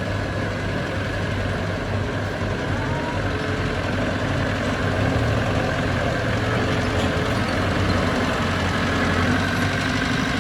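Heavy diesel engine of earthmoving machinery running steadily, a low drone that grows a little louder about halfway through.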